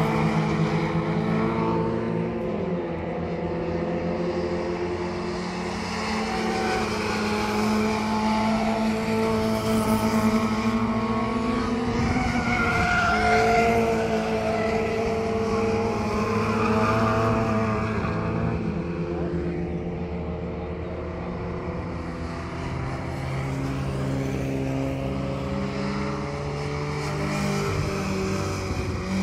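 Several Mini 1000 class race cars, with their roughly 1000 cc engines of about 100 hp, running hard as they lap the circuit. The notes of the overlapping engines rise and fall with the revs as the cars come through the bends and pass.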